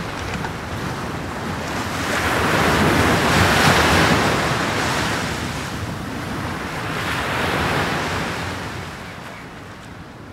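Sea waves surging and washing back: two swells, the louder one about three to four seconds in and a second around seven and a half seconds, then dying away near the end.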